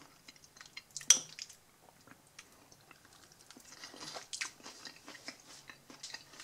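A person chewing a mouthful of warm barbecue sauerkraut: soft, wet chewing with many small clicks, and one sharp click about a second in.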